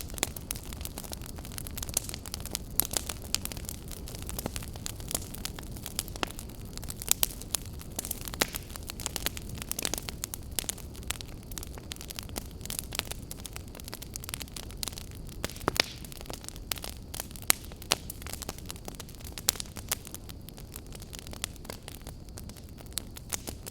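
Wood campfire burning, a steady low rumble of flames with frequent sharp, irregular crackles and pops.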